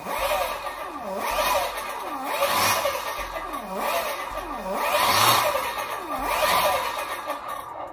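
48 V three-phase brushless e-bike motor, driven by its controller, spinning up and slowing again as the twist-grip throttle is opened and released over and over: a whine that rises and falls in pitch about once a second.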